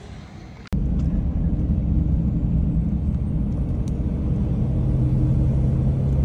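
A quiet moment cut short about a second in, followed by the steady low drone of a road vehicle's engine running at an even speed.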